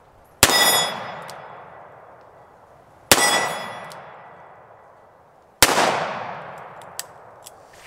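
Three shots from an EAA Windicator .38 Special revolver with a 4-inch barrel, fired single action, about two and a half seconds apart. Each shot has a long echoing tail, and the first two carry a metallic ring.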